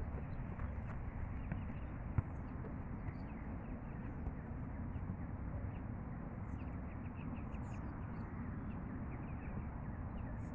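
Open-air ambience on a grass training pitch: a steady low rumble with one sharp thud of a football being struck about two seconds in, and faint bird chirps.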